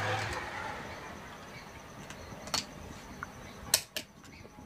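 A few sharp little clicks of small metal parts being handled: a nut and bolt being fitted to fix a power transistor to its heatsink on a TV circuit board. One click comes about two and a half seconds in, and two more come close together near the end.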